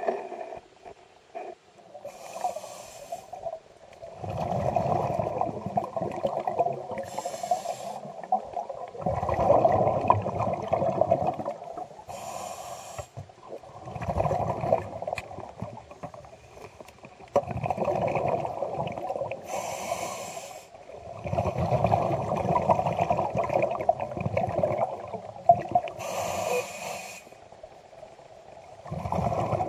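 Scuba diver breathing through a regulator underwater: a short hissing inhalation about every five to seven seconds, each followed by a long bubbling exhalation.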